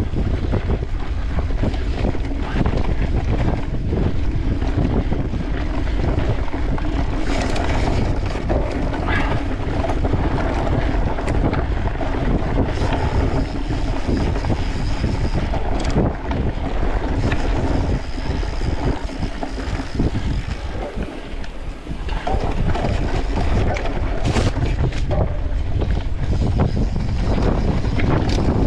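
Wind rushing over the microphone of a camera riding along on a mountain bike at race speed, with the bike rattling and knocking over rough forest trail. The rush eases briefly about two-thirds of the way through.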